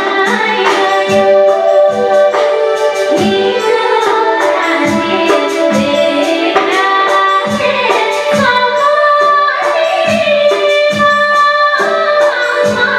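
A woman singing a Nepali song over instrumental accompaniment, with a regular low drum beat.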